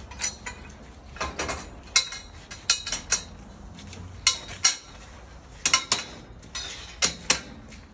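Metal scaffold tubes clinking and knocking together as a guardrail tube is handled and fitted to an upright scaffold standard: about a dozen sharp metallic clinks, with a quick run of several near six seconds in.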